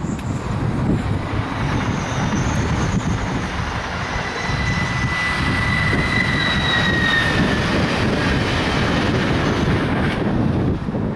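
Red double-deck electric regional passenger train passing, with a steady high whine that drops a little in pitch as it goes by. Heavy wind rumble on the microphone.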